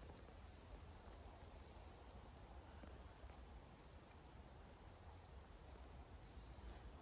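Faint, quiet forest ambience with a small songbird calling twice, each call a quick run of about five high notes falling in pitch, about a second in and again about five seconds in.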